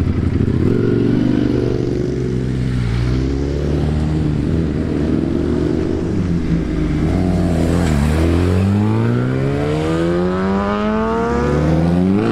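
Superbike engines, among them a Ducati V4 with a full Termignoni exhaust and a Kawasaki ZX-10R, running and pulling away. They rev in the first seconds, then about eight seconds in an engine climbs in a long rising pitch as it accelerates away.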